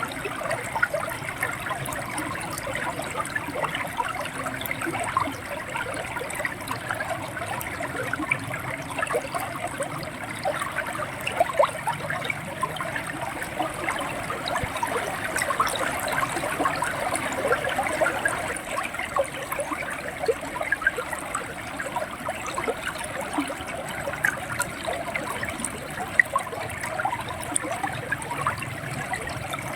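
River water running and gurgling, a steady rush full of small splashes, with a few sharper splashes now and then.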